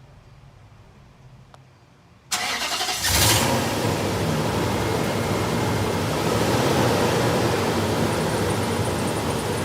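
2005 Nissan Titan's 5.6-litre V8 cranked by the starter about two seconds in, catching within a second and then running steadily. It starts now that the nearly empty fuel tank, which the faulty gauge had shown as half full, has been refuelled.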